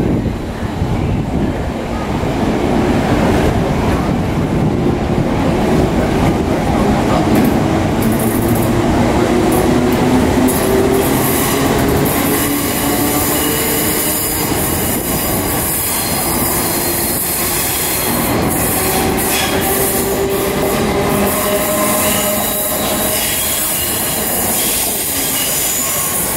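Class 455 electric multiple unit running along the platform as it gathers speed, its traction motors giving a whine that slowly rises in pitch over the rumble of wheels on rail. High wheel squeal joins in during the second half.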